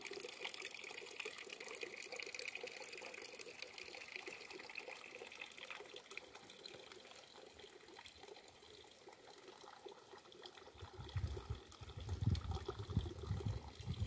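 Faint, steady babble of running water, like a small stream, under open-air hiss. Low irregular thumps join in during the last few seconds.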